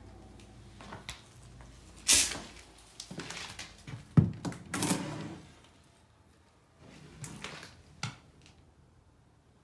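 An interior door being handled: knob and latch clicks and the door knocking, with a few shorter knocks and rustles in between.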